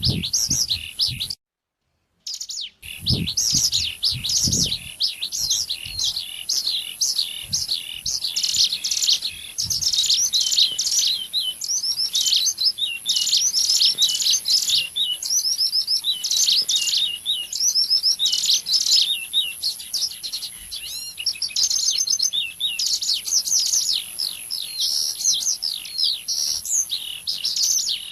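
Looped bird-lure recording of ciblek gunung song: fast, dense, high-pitched chirping and trilling with a steady high hiss behind it. It cuts out for about a second near the start, and there are a few low thumps soon after.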